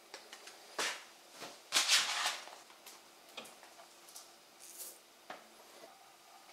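Dry spices being measured with a spoon and tipped into a stainless steel mixing bowl: a few light clicks and taps, with a short rustling burst, loudest about two seconds in, and a smaller one near the end.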